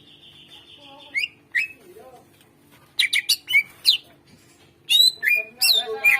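Cucak ijo (green leafbird) singing a loud, varied song. It opens with a buzzy trill lasting about a second, then moves into clusters of sharp whistled notes that sweep steeply in pitch, about three seconds in and again about five seconds in.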